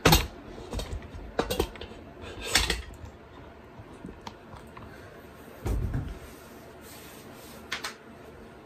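Phone handling noise as the phone is propped in place: several knocks and rubs against the microphone in the first three seconds, a dull thump near six seconds, and a light click near the end.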